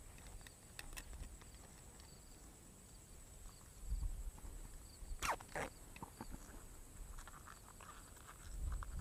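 Faint small clicks and rustling from hands handling a small lure and fishing line, with a low rumble that swells twice and two quick falling whistle-like sweeps about five seconds in.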